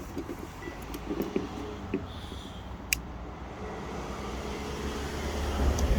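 Outdoor street ambience: a steady low rumble of road traffic that grows louder near the end, with a few small clicks.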